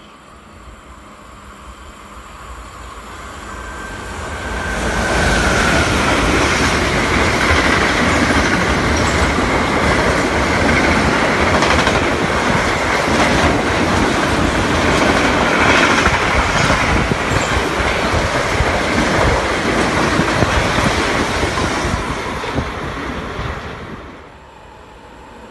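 A train passing close by on the rails: the noise builds over the first five seconds, stays loud for about eighteen seconds, then falls away sharply near the end.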